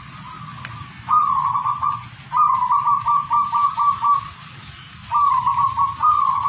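Zebra dove (perkutut) singing its cooing song: four phrases of quick, rolling coos, each a run of short repeated notes, the second and longest about seven notes.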